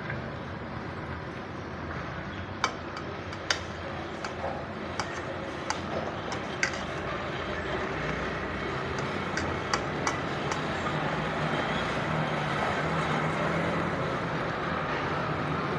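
Battered tempe slices deep-frying in hot oil in a small frying pan: a steady sizzle with a few sharp pops in the first ten seconds. The sizzle grows a little louder as more slices go into the oil.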